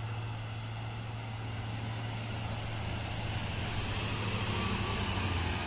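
Diesel engine of a Mercedes-Benz OH 1526 coach bus running with a steady low drone. The bus grows louder as it comes up and passes close by, and a rushing hiss of tyres and air builds as it goes past.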